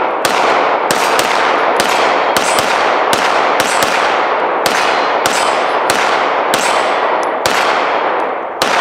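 Arsenal Strike One Speed 9mm striker-fired pistol firing a steady string of shots, roughly two a second, each shot's echo dying away into the next.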